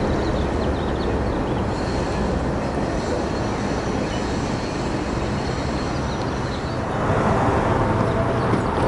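Steady low rumble of a train out of sight along the tracks, with birds chirping. About seven seconds in the sound changes abruptly to a louder, fuller hum with faint steady tones.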